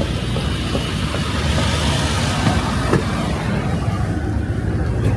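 Road traffic: a steady low rumble with a hiss that swells and fades around the middle, like a car passing.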